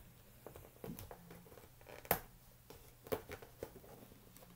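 Faint handling noises of a cardboard box and its ties being worked loose: scattered rustles and light clicks, the sharpest about two seconds in and another about a second later.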